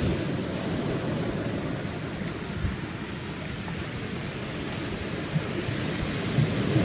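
Sea waves washing on a rocky shore, with wind rumbling on the microphone. A couple of small knocks sound in the second half.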